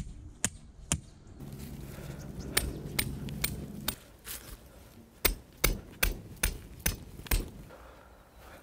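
Tent pegs being hammered into the ground while pitching a shelter: a series of sharp knocks, ending in a quick, even run of about six blows.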